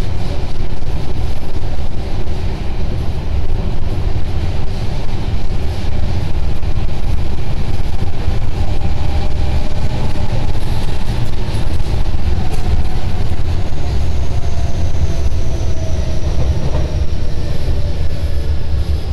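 Tobu 50070 series commuter train running, heard from inside the car: a steady rumble of wheels on rail. In the last few seconds the traction-motor whine falls slowly in pitch as the train slows.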